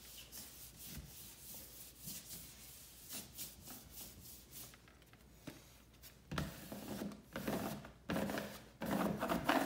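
Faint rubbing and rustling, then in the second half a person coughing in several short, loud bursts.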